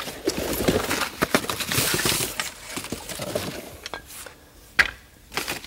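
Metal tools being handled and taken from their box: a run of clinks and knocks over rustling, with one sharper clack near the end.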